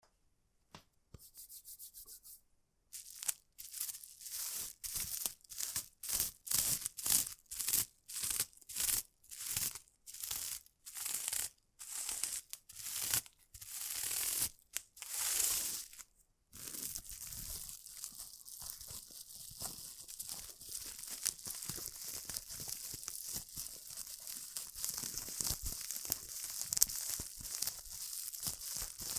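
Plastic bubble wrap being rubbed and crinkled in short, repeated strokes with brief gaps between them, then, about sixteen seconds in, a continuous crackling of many small clicks.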